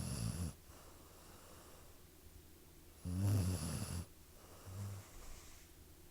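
Snoring: the end of one snore at the start, a loud snore about three seconds in lasting about a second, and a shorter, fainter one just before five seconds.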